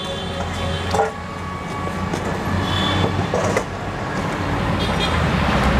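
Roadside traffic: vehicle engines give a steady low rumble, with a brief horn toot about three seconds in.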